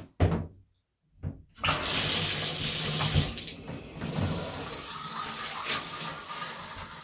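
Two short knocks, then, about a second and a half in, water starts rushing steadily from a newly fitted Waterpik PowerPulse handheld shower head on its first test run.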